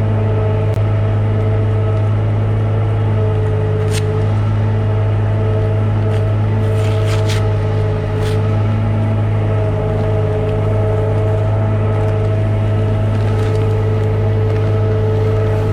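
Farm tractor engine running steadily at high revs under load, driving a feed mixer wagon's augers through the PTO to mix corn silage into the feed. A few faint clicks sound over the steady hum about four and seven to eight seconds in.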